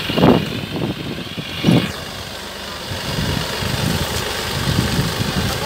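Tractor engine running steadily while it drives a mounted crop sprayer putting out mist. It is louder for a moment twice in the first two seconds.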